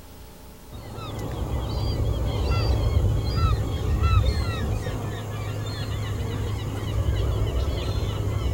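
Many birds calling at once: short, arching calls overlap thickly, starting about a second in, over a steady low hum.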